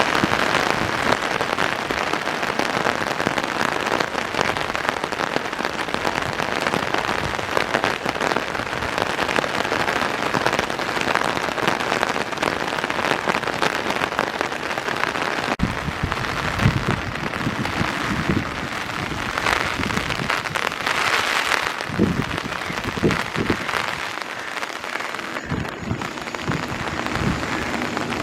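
Steady monsoon rain falling, with many separate drop hits. About halfway through the sound changes abruptly, and several low knocks follow.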